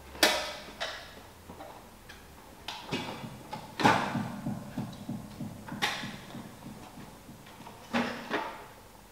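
Plastic waste such as bottles and packaging, crackling and knocking in a series of separate sharp hits, each with a short fading tail. The loudest hit comes about four seconds in.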